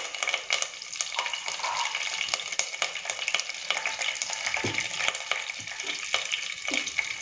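Peanuts and fresh curry leaves frying in hot oil in a pressure cooker: a steady sizzle with many small crackles and pops.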